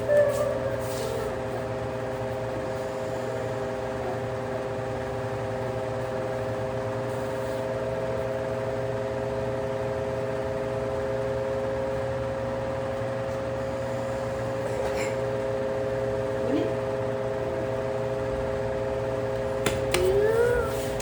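Electric desk fan running with a steady, even motor hum. A child's brief voice sounds come in near the start and near the end.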